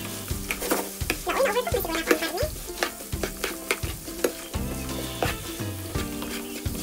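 Diced pork, onions and ginger sizzling in a hot nonstick frying pan, stirred with a plastic spoon that scrapes and knocks against the pan many times at an uneven pace.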